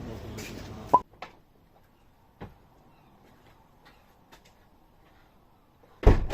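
Rustling that stops with a sharp click about a second in, then a few faint clicks, and a heavy thump near the end.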